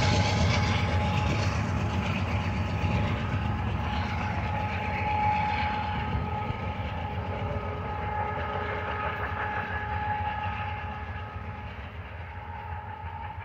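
Union Pacific loaded coal train rolling away, its rear distributed-power diesel locomotive and the cars' wheels rumbling and clattering on the rails and fading steadily. Thin steady high tones run under the rumble.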